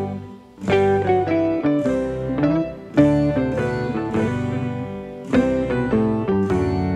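Instrumental background music: a plucked-string melody played in short phrases of quick notes.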